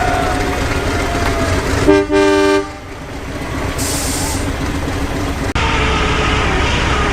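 English Electric diesel locomotive sounding its horn in one short blast about two seconds in, over the steady rumble of the running engine. A brief hiss follows, and the background changes abruptly near the end.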